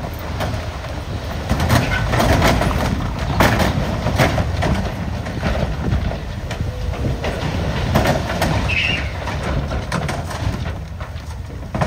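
Dump truck tipping its load: soil and rocks sliding out of the raised bed, with repeated knocks of rocks against the steel bed and tailgate over a steady low rumble of the running truck.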